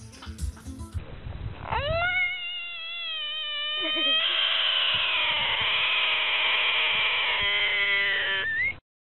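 Bullfrog held in the hands with its mouth wide open, giving a long distress scream: one pitched wail that starts about two seconds in, gets louder, holds steady and cuts off suddenly near the end. Before it, a second of low thumps.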